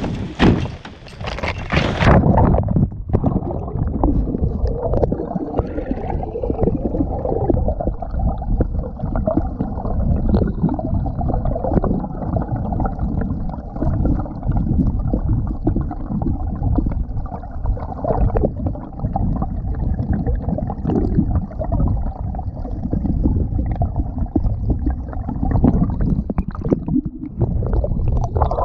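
An ATV crashing and tumbling down a drop, loud for about two seconds, then a steady, muffled gurgle of water around the ATV's front camera lying among rocks.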